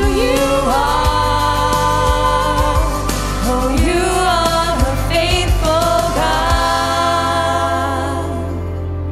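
Contemporary worship song: a singer holds and bends long notes over a band with a steady bass. About two-thirds of the way through the bass drops out and the music thins as the song winds down.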